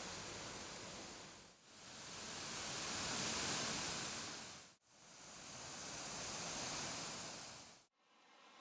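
Rushing water of a mountain waterfall, a steady even hiss that dips out briefly three times, nearly to silence at the last two dips, and comes back quieter near the end.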